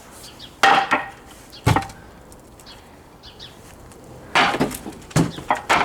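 Old wooden swing being broken apart: wood cracking and splintering under force, with a sharp crack about half a second in, another about a second later, then several more cracks in quick succession near the end.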